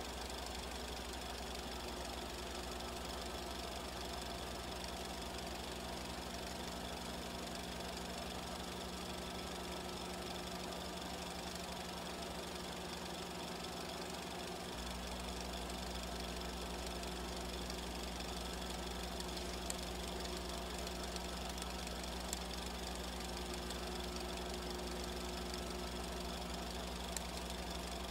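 Film projector running: a steady mechanical clatter over a constant electrical hum. The low hum steps up in level about halfway through.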